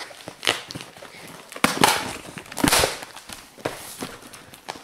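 Cardboard shipping box being opened by hand: packing tape and cardboard ripping and crackling in irregular bursts.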